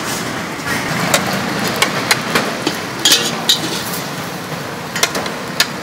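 Metal ladle clinking and scraping against a steel wok as sauce is stirred, with repeated sharp knocks over a steady background hiss.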